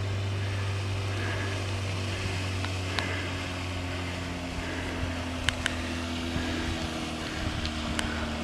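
Engine running steadily with a low drone, with a few sharp clicks over it.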